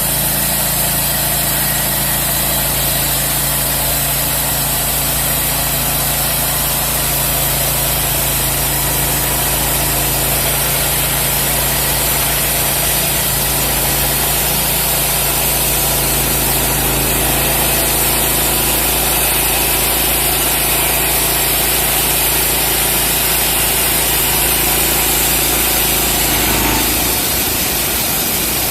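Engine of a homemade portable bandsaw mill running steadily, with the note changing about 27 seconds in.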